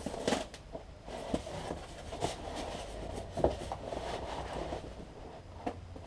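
Cardboard box and packaging being handled: irregular knocks, clicks and rustles, with one sharper knock about three and a half seconds in.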